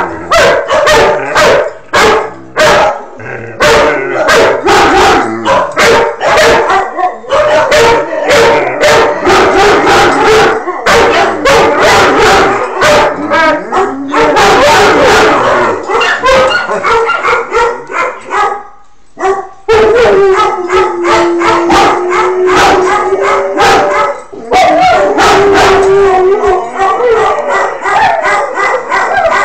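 Two dogs barking and howling almost without a break, in sharp barks mixed with drawn-out howls. One long, low howl is held for a couple of seconds a little over twenty seconds in.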